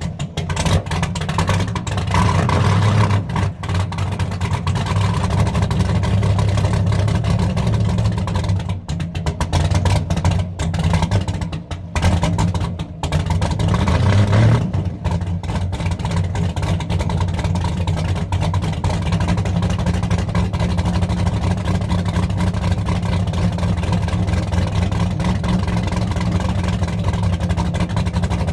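Mercury Racing outboard engine running at idle just after being started, with a couple of brief rises in revs.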